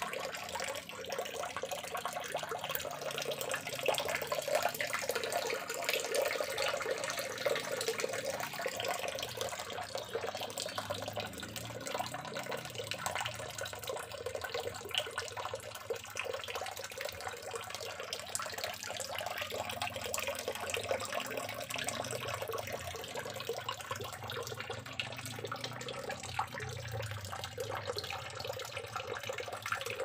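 A thin stream of leaking water pours steadily into a water-filled tank and splashes on the surface.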